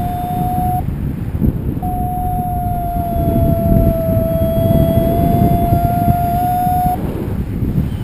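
Wind rushing over the microphone in flight under a paraglider, with a paragliding variometer's steady electronic tone. The tone stops about a second in, comes back a second later, dips slightly in pitch and rises again, and cuts off about a second before the end.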